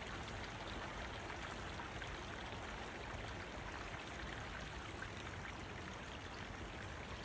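Shallow stream flowing over a stony bed: a steady rush of running water.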